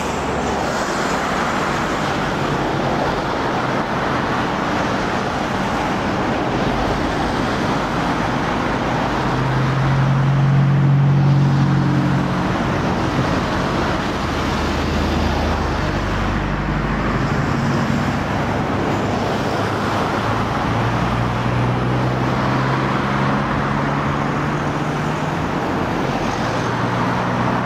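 Road traffic passing steadily: tyre noise with vehicle engines, one vehicle loudest about a third of the way in and another passing near the end.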